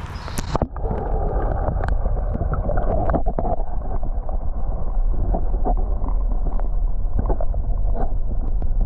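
Creek water heard from underwater: a steady, muffled low rumble with scattered small clicks and knocks. About half a second in, the microphone plunges in and the sound turns dull.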